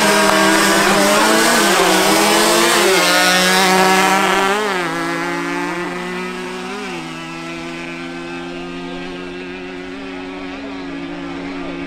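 Two-stroke engines of a Yamaha Banshee 350 quad (parallel twin) and a Yamaha RXZ motorcycle (single) accelerating hard at full throttle. Their pitch climbs through each gear and drops at each upshift, several times, and the sound grows fainter from about halfway as they pull away.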